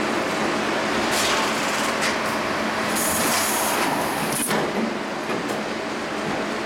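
CNC cut-to-length line running, steel sheet feeding through the leveling rollers with steady machine noise. A high-pitched hiss comes in about three seconds in for a second and a half, ending with a sharp click.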